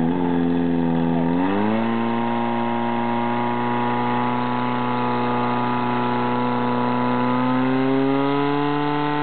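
Portable fire pump engine revving up about a second and a half in, then running steadily at high revs as it drives water through the hoses to the nozzles, rising slightly again near the end.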